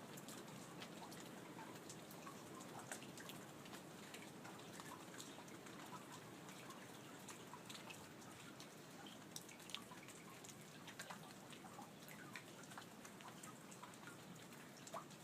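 Faint light rain falling, a steady soft hiss with scattered individual drops and drips ticking irregularly throughout.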